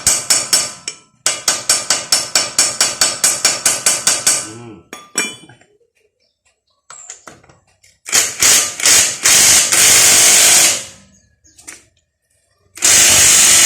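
Power impact wrench hammering at a lug nut in a rapid rattle of blows, then running in two longer bursts. The nut's swollen chrome cap keeps the socket from seating properly.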